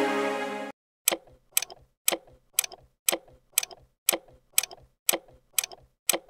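Intro music that cuts off abruptly under a second in, followed by a clock-style ticking sound effect, about two ticks a second, each tick with a fainter second click just after: a get-ready countdown before the first quiz question.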